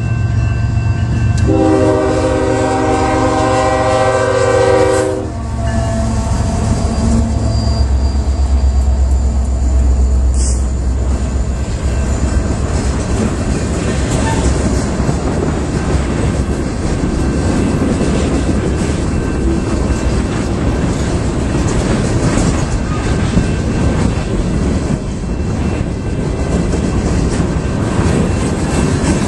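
A Union Pacific freight train's diesel locomotive sounds one long blast on its multi-tone chord horn, starting about a second and a half in and lasting about three and a half seconds. The locomotive's engine then rumbles past, followed by freight cars rolling by with steady wheel noise and clickety-clack.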